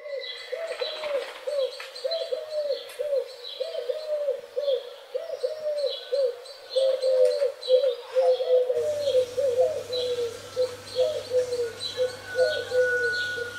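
A bird calling rapidly and repeatedly, short rising-and-falling calls about two or three a second. A faint steady hum joins about nine seconds in.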